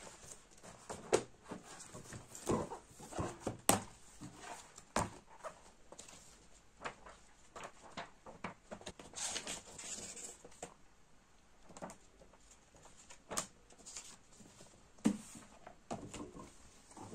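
Paper handling on a desk: booklet pages flipping and rustling, with books being set down and stacked, giving a string of short knocks and taps and a longer stretch of rustling about nine seconds in.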